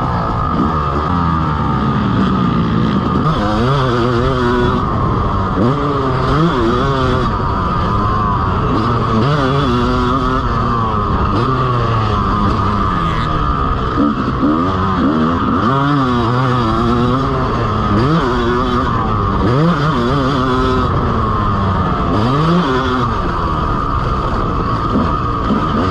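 Yamaha dirt bike engine running under way, heard close up from on the bike, its pitch climbing and dropping again and again as the throttle is opened and eased off.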